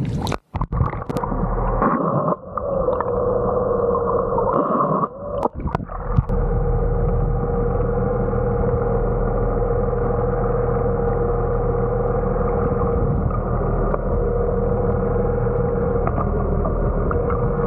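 A camera dunked underwater gives splashes and sudden dropouts over the first few seconds. Then comes a steady, muffled underwater hum with a held whining tone, the boat's running motor heard through the water.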